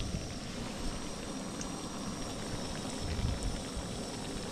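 Hush puppies frying in hot oil in a small pan, a steady sizzle. A brief low rumble comes about three seconds in.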